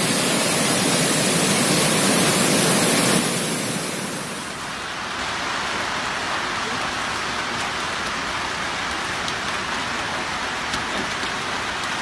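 Loud rushing of a flooded river pouring over a low weir for about the first three seconds. It then eases into a steady, softer hiss of heavy rain over standing floodwater, with a few faint ticks.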